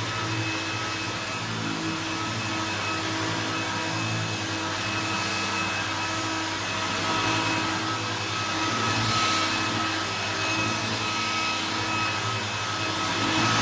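1968 Hoover Convertible 1124 upright vacuum cleaner running: a steady motor whine over a rush of air that swells briefly a few times, most strongly near the end.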